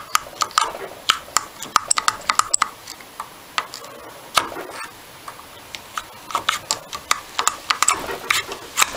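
Pliers clinking and scraping against the metal body of an old Amal monoblock carburettor while the stuck slide is worked out of its bore: a fast, irregular run of sharp metallic clicks, thinning out for a couple of seconds around the middle and then dense again.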